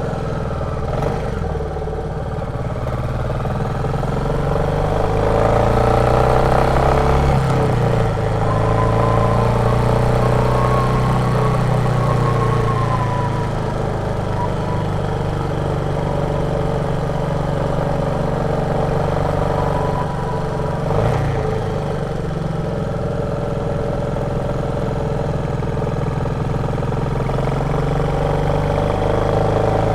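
Royal Enfield Meteor 350's single-cylinder 349 cc engine running under way, with its pitch rising and falling as the revs change: it climbs over the first several seconds, drops sharply about seven seconds in, and shifts again near twenty-one seconds.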